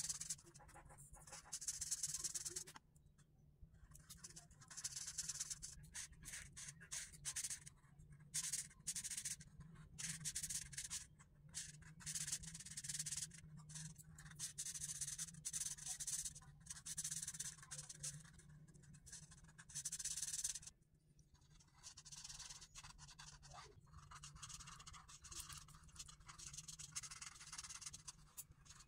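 Felt tip of a dual-tip marker rubbing and scratching across paper in repeated colouring strokes: bursts of soft, scratchy hiss with brief pauses between them.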